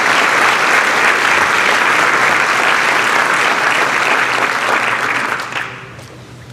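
Large audience applauding, the clapping dying away about five and a half seconds in.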